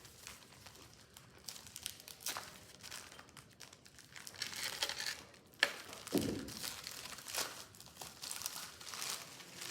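Packaging being opened and handled by hand, crinkling and rustling irregularly, with a sharp click a little past halfway and a dull knock just after it.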